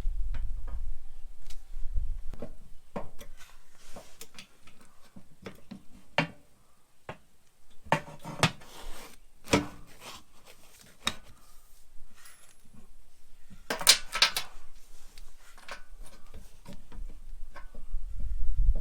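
Irregular clinks, taps and knocks of small metal parts and tools being handled, with a louder cluster about halfway through and a brief rattle a little later.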